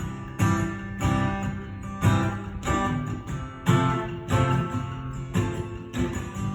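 Acoustic guitar strummed in a steady rhythm, its chords ringing between strokes, in an instrumental passage of a song.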